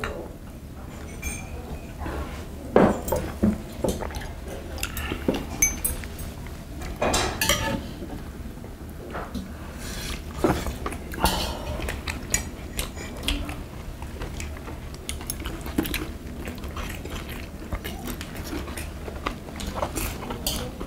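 Chopsticks and spoons clinking and tapping against brass tableware and cups during a meal, in irregular clicks and knocks, the sharpest about three seconds in and again around seven and eleven seconds.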